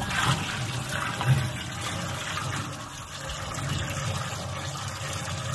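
Liquid poured from a plastic bucket in a steady stream, splashing into a stainless steel tub that is already part full.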